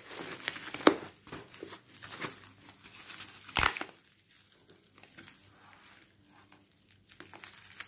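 Plastic parcel wrapping crinkling and crackling as it is handled and opened by hand, with one short loud rip about three and a half seconds in, then quieter rustling.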